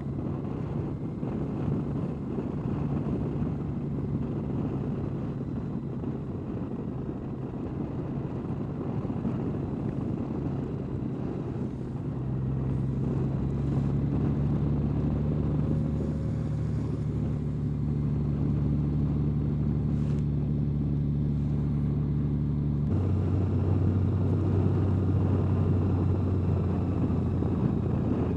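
Honda Gold Wing motorcycle's flat-six engine running while riding, over a steady rush of wind and road noise. The engine note steps up in pitch about twelve seconds in and drops to a lower pitch again about twenty-three seconds in.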